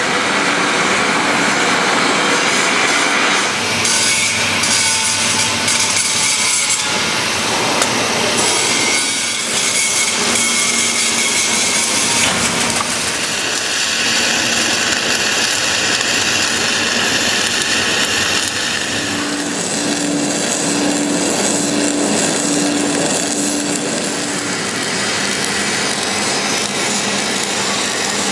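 Automatic gas-shielded wire welding arc (LoneStar bug-and-band orbital welder on an EWM Phoenix 522 RC coldArc power source) running on a thick-walled steel pipe joint, a steady crackling hiss. A pulsing hum joins in briefly about two-thirds of the way through.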